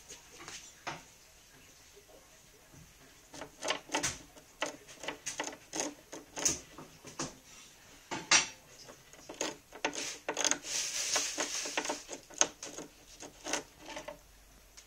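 A rabbit gnawing on a hard bagel: irregular crisp crunches and clicks, a few at first, then coming thick and fast for most of the rest.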